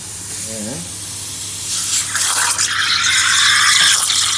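Steam hissing from the steam wand of an Atomic stovetop coffee machine; about two seconds in it turns louder and rougher as the wand froths detergent-laced water in a glass, the way milk is frothed.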